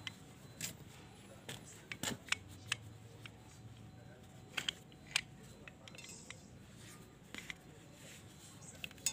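Scattered light clicks and knocks of a removed throttle body being handled and wiped clean by hand.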